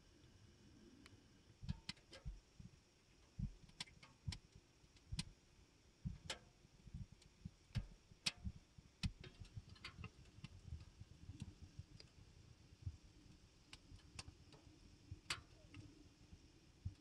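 Faint, irregular clicks and soft low knocks, a few a second and uneven in strength, over a quiet low hum.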